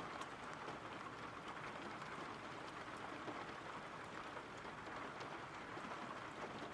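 Steady rain, a soft even hiss with occasional faint drop ticks.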